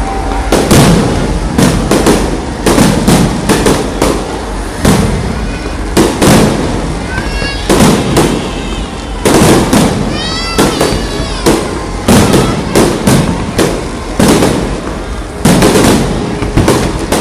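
Aerial fireworks display: shells bursting overhead in an irregular run of sharp bangs, about one to three a second.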